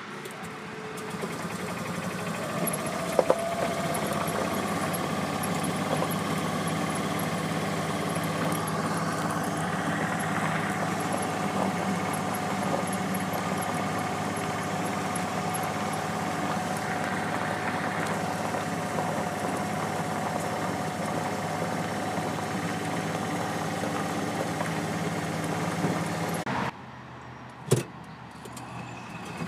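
Motor vehicle engine running steadily at low speed, a constant hum. Near the end it cuts off abruptly to quieter ambience, with a single sharp knock shortly after.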